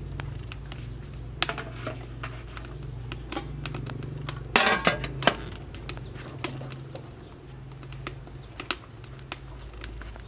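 Aluminium steamer pot tiers and lid clattering as they are stacked onto the pot, with scattered light metal clicks and a loud clatter about four and a half seconds in, over a steady low hum.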